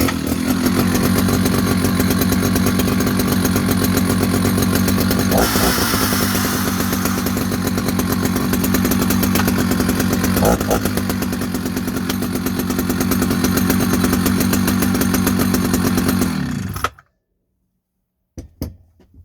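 Husqvarna 650, a 65 cc two-stroke chainsaw, running steadily through its large chamber muffler for about seventeen seconds, then stopping abruptly.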